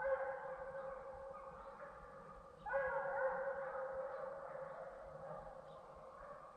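Several deer hounds baying in long, drawn-out howls that overlap: one bout of howls begins at the start and a fresh one breaks out a little under three seconds in, each fading slowly. It is the voice of hounds on the track of a deer.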